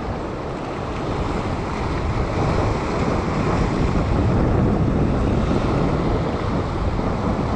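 Ocean surf breaking and washing over a rock ledge, mixed with wind buffeting the microphone: a steady rushing noise that swells a little a couple of seconds in.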